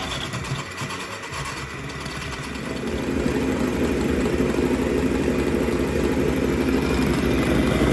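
Electric hand mixer whipping cream in a bowl, its motor running steadily with the beaters churning, getting louder and heavier about three seconds in.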